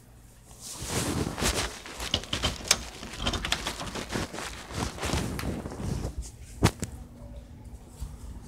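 Handling noise from a hand-held phone camera: rustling, rubbing and scuffing while carried on the move, with footsteps. A single sharp click or knock stands out about two-thirds of the way through.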